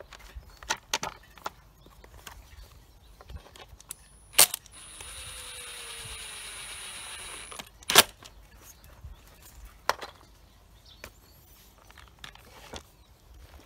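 Clicks and knocks of handling a Husqvarna 236 chainsaw while its plastic top cover is fitted back on. Two sharp, loud clicks come about four and eight seconds in, and between them a steady whir lasts about three seconds.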